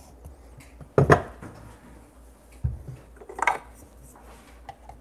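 Espresso tools being handled: a metal portafilter and dosing funnel knocking against a wooden stand and the counter. A sharp knock comes about a second in, then a dull thump and a brighter clink a little later.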